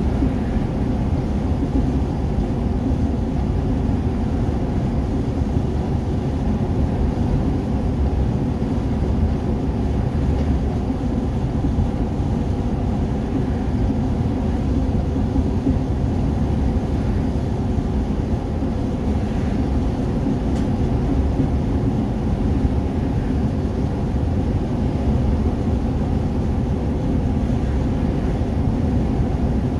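Steady road and engine noise heard inside a vehicle cruising at motorway speed: a low, even drone of tyres and engine that does not change.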